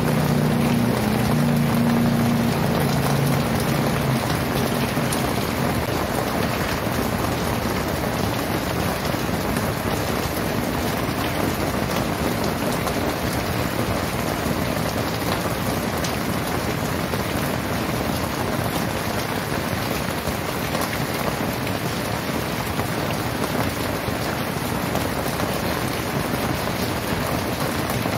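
Very heavy rain pouring steadily, a dense even hiss with no thunder. A low hum under the rain fades out in the first few seconds.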